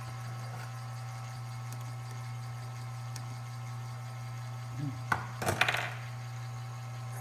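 Cowells 90 ME lathe running with a steady hum. About five seconds in there is a sharp click, then a brief clatter.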